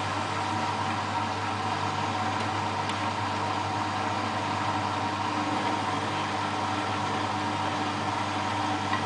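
Beko WMA642 front-loading washing machine running with a steady, unchanging hum during the slow early stage of its spin programme.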